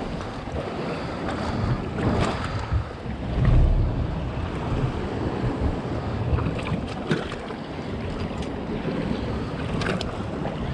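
Wind buffeting the microphone over the wash of ocean surf, with a strong low gust about three and a half seconds in. A few small clicks and knocks come later on.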